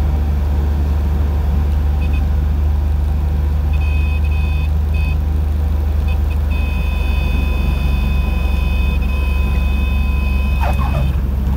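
Cessna 182's piston engine droning steadily in the cabin, with the stall warning horn sounding in short bleats from about two seconds in and then holding steadily from about six seconds in, as the plane nears stall speed in the landing flare just above the runway.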